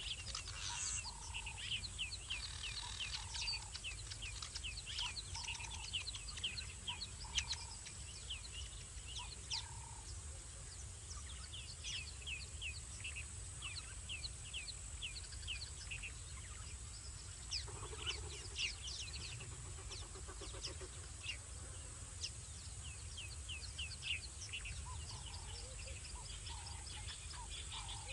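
Night-time wildlife chorus in the bush: many short, falling chirps repeating rapidly, with lower notes about once a second early and again near the end. Underneath run a steady high-pitched drone and a low rumble.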